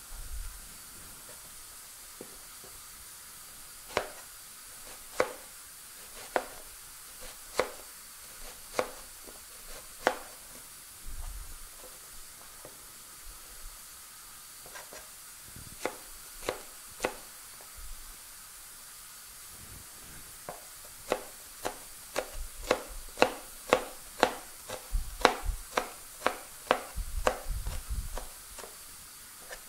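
Chef's knife chopping a red onion on a plastic cutting board: single sharp chops about a second apart, then a quicker, steady run of two to three chops a second in the last third.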